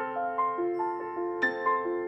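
Gentle background music: a slow melody of single struck notes, each ringing on over the next, in a soft mallet-percussion or piano timbre.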